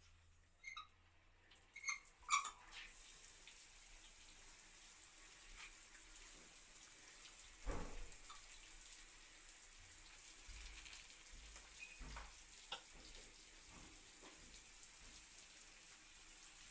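A few short clicks and beeps, then water starts running from the instant electric water heater's shower or tap about three seconds in and keeps flowing steadily.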